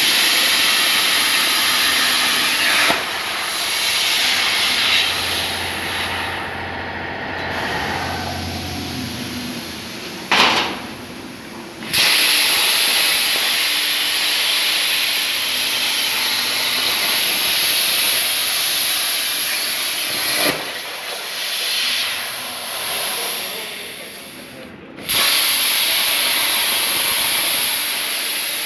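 CNC plasma torch cutting 2 mm sheet metal: a loud, steady hiss. It drops away about three seconds in, returns at about twelve seconds, drops again near twenty-one seconds and resumes at about twenty-five seconds, as the cutting arc starts and stops.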